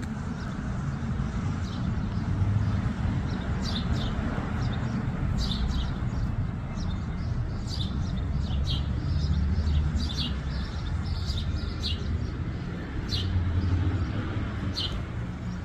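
Small birds chirping, short high chirps coming singly and in quick clusters, over a steady low rumble.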